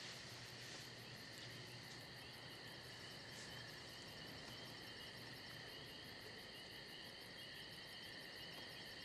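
Faint, steady chorus of night insects chirring continuously in several high pitches.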